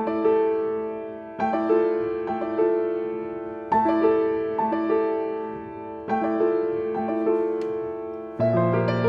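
Gentle piano music: a slow, repeating pattern of broken chords, with a new chord struck about every two and a half seconds and left to ring and fade.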